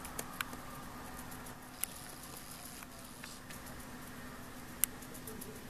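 A gerbil chewing broccoli: scattered small crisp clicks and ticks, with a few sharper snaps, over a faint steady hum.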